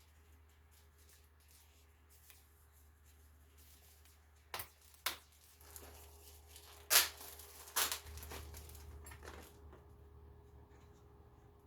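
Tools and their packaging being handled during unboxing: rustling and tearing with a few sharp clacks, the loudest about seven seconds in.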